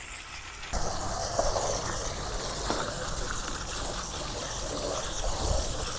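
Garden hose spray nozzle spraying water onto a CRT monitor's circuit board, rinsing off the cleanser. It is a steady spray of water that starts just under a second in.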